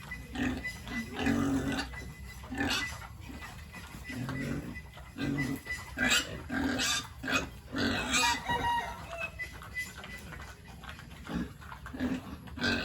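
Pigs grunting and oinking in a string of short, repeated calls, with a few sharper, louder ones about six to eight seconds in.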